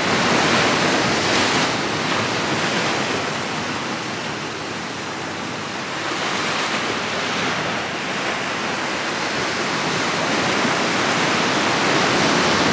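Ocean surf washing in over a rocky shore: a steady rush that swells, eases a little midway, and builds again toward the end.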